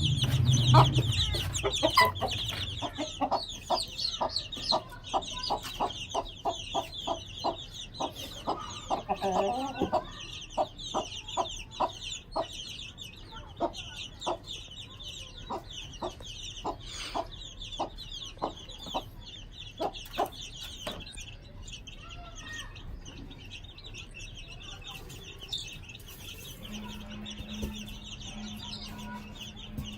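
Aseel hen clucking over and over, about two clucks a second for the first twenty seconds, while her chicks peep continuously in high, quick chirps. Near the end a low steady hum comes in.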